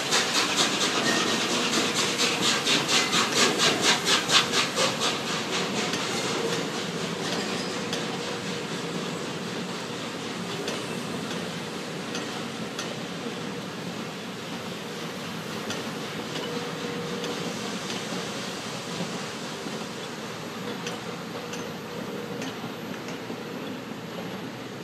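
The three-cylinder Peppercorn A1 steam locomotive Tornado working through the station, with fast, even exhaust beats at about five a second. The beats fade over the first several seconds as the engine draws away, leaving a quieter, steady rolling of the train with faint clicks.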